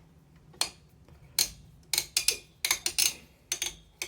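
Screwdriver working the screws that hold down a stock AMD CPU cooler: a series of sharp, irregular metal clicks and ticks.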